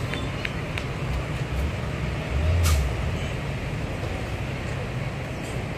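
Heavy diesel engines of a Kobelco excavator and dump trucks running with a steady low drone, swelling briefly about two and a half seconds in, where a short sharp hiss cuts through.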